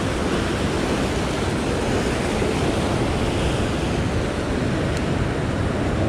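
Ocean surf breaking and washing over a coastal rock ledge, a steady rush of white water.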